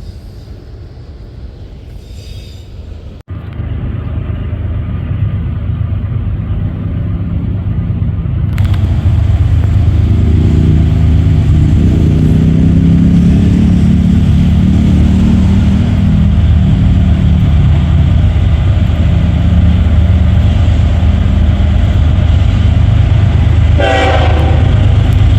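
Train passing close by: a low, steady rumble that comes in after a few seconds, grows much louder and stays loud, with a brief high-pitched sound near the end.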